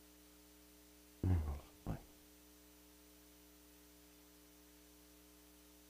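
Steady low electrical hum in the microphone feed during a pause in the prayer, with a brief soft vocal sound about a second in and a shorter one just after.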